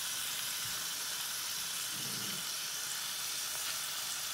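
Oxtail pieces sizzling in butter in a hot pot as they brown: a steady, even hiss.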